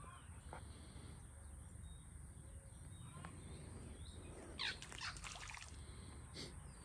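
Faint outdoor woodland ambience: a steady high-pitched drone over a low rumble, with a short bird call a little before five seconds in.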